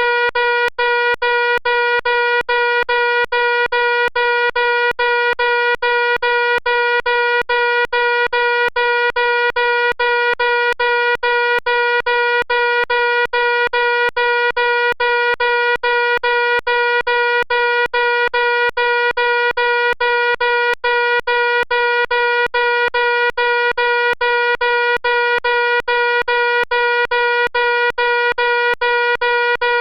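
Fire alarm sounding a loud, continuous buzzy electronic tone, broken by tiny gaps several times a second.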